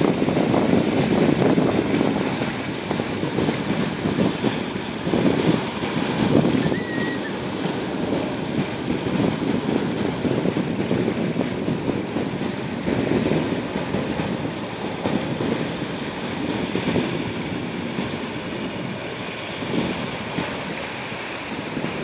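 Waves washing on the shore with wind rumbling on the microphone, the wash swelling and easing every few seconds.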